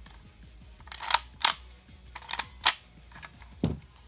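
Sharp hard-plastic clicks, four in under two seconds, then a duller knock near the end, from the DX Monster Raise Buckle toy being handled.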